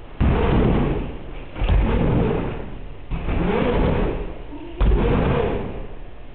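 Bike tyres hitting and rolling on a plywood ramp: four heavy thuds about a second and a half apart, each followed by a rumble that fades.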